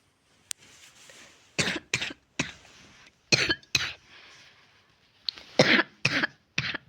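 A sick person coughing repeatedly: about eight short coughs in clusters of two or three, with softer breaths between the clusters.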